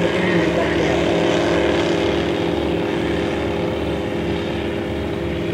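Just Aircraft SuperSTOL light aircraft's propeller engine running steadily as it climbs past overhead, fading slightly toward the end.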